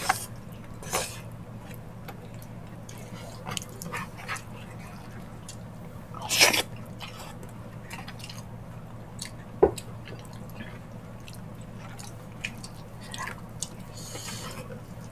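Close-miked mukbang eating sounds: wet chewing, smacking and sucking as gelatinous ox-feet balbacua stew and rice are eaten by hand, made up of scattered small clicks. The loudest is a short wet burst about six and a half seconds in, then a sharp click near ten seconds, over a steady low hum.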